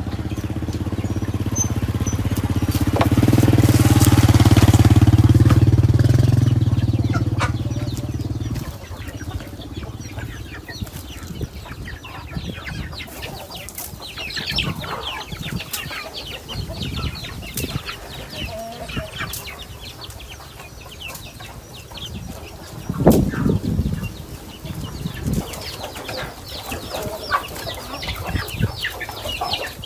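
A motor engine runs loud and steady, swelling and then stopping abruptly about nine seconds in. After that a flock of gamefowl and their chicks cluck and peep while pecking at scattered grain, with a couple of thumps a little past the twenty-second mark.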